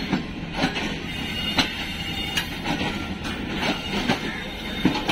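Passenger train running on the rails: a steady rumble with wheels clattering over rail joints in irregular knocks, and a faint high squeal from the wheels partway through.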